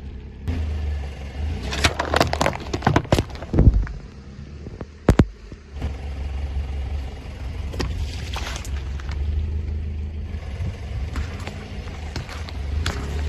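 A car's engine runs with a low steady rumble while its tyres roll over objects, giving a series of sharp pops and cracks, the loudest single crack about five seconds in.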